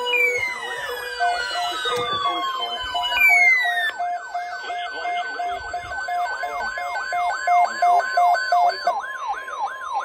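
Several NOAA weather radios sounding their alert alarms together for a tornado watch. Their alarms overlap: a steady warning tone, a rapid falling siren-like whoop about three times a second, and a pulsing beep that starts about a second in and stops near the end, with long falling glides in the first few seconds.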